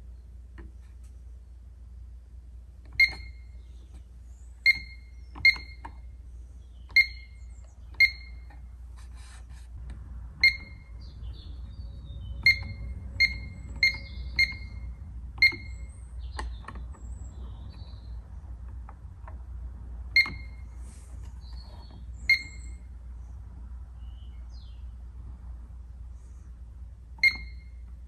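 Pyronix alarm keypad beeping once for each key pressed: about fourteen short, high beeps at irregular intervals, with several in quick succession around the middle, while a user code is keyed in from the panel's edit-users menu.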